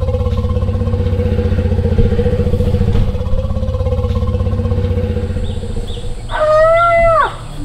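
Asian elephants vocalizing as they meet an unfamiliar ball: a long, low, pulsing rumble, then about six seconds in a loud, high call that rises, holds and drops away within about a second.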